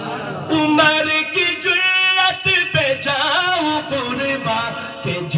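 A man singing an Urdu naat unaccompanied, drawing the line out in long ornamented runs with a wavering pitch.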